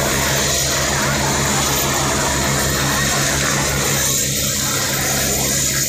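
Helicopter landing, its rotor and engine running with a steady low hum under an even rushing noise.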